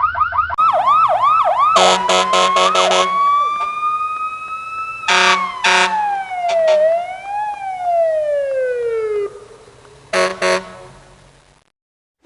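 A string of synthetic electronic sound effects. It opens with a fast warbling, siren-like sweep, then pulsing chords and a held tone that rises slowly. A long glide falls in pitch, there are a few short pulses, and the run ends in a brief downward swoop.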